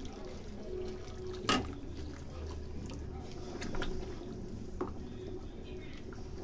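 Hot water poured into a simmering fish curry in a kadai, the gravy bubbling as a spatula stirs it, with two sharp knocks of the spatula or jug against the pan.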